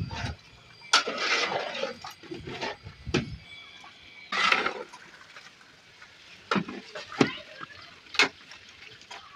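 Long metal ladle stirring thick mutton gravy in a large aluminium cooking pot, with a few irregular scraping, sloshing strokes, followed later by a few short sharp knocks.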